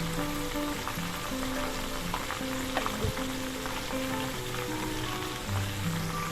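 Hot oil sizzling as breadcrumbed calamari rings deep-fry, with a few sharp spattering clicks. Background music plays.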